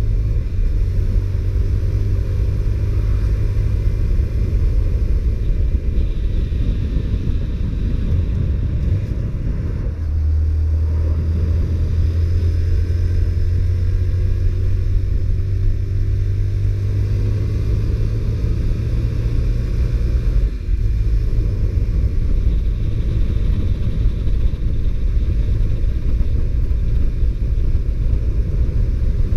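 Honda CBR125R's small single-cylinder four-stroke engine running steadily under way. The engine note shifts about ten seconds in, and the sound dips briefly about twenty seconds in.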